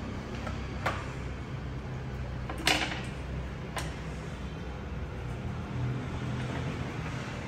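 Chopsticks knocking and scraping against a steel cooking pot a few times, the loudest clatter just under three seconds in, over a steady low hum.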